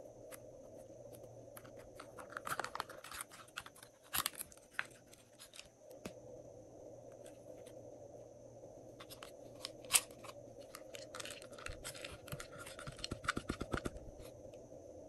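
Slime being worked by hand: irregular sticky clicks and crackles as it is pressed, poked and stretched, busiest a few seconds in and again over the last several seconds, with one sharp snap about ten seconds in.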